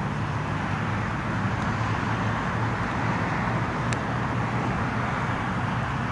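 Steady outdoor background noise with a low hum underneath, and one faint sharp click about four seconds in.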